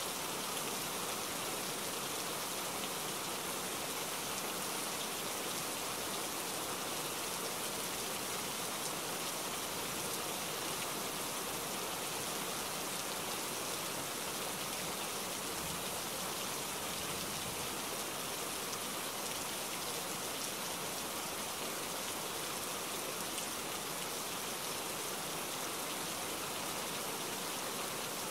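Steady rain falling on wet paving stones, an even hiss of drops with no change in strength.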